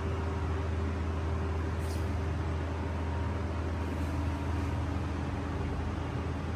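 Makita BS001G 40Vmax cordless belt sander running steadily, a continuous motor-and-belt drone with a strong low hum.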